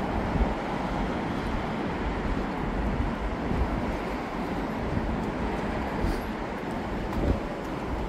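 Steady outdoor noise with a low rumble: wind on the microphone over city traffic. There are brief low bumps about half a second in and near the end.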